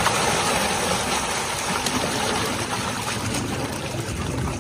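Water rushing and splashing in a steady, dense wash, with small scattered clicks, as fish are released into the water.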